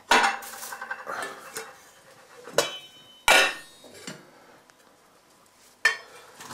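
Steel saucepan and its lid clanking as they are handled: four sharp metallic knocks, some left ringing, the loudest right at the start and about three seconds in.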